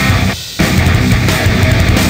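Loud heavy rock music with a short break about half a second in.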